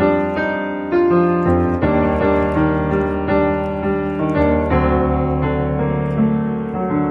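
Background piano music: a steady run of struck chords and melody notes.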